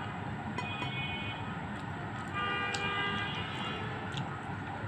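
Scattered soft clicks of chewing and fingers picking at a fried tilapia, over a steady background hum with short stretches of high, horn-like tones about a second in and again past the middle.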